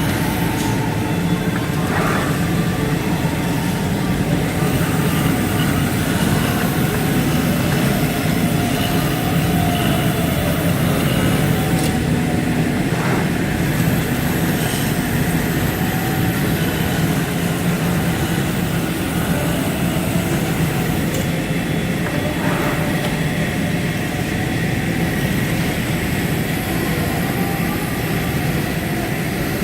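Automatic computer-controlled fabric cutting machine running: a steady mechanical hum, with a few short clicks about 2, 13 and 22 seconds in.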